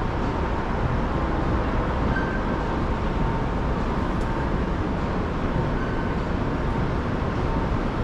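Steady low rumble of city traffic and building machinery, with faint high whines that come and go.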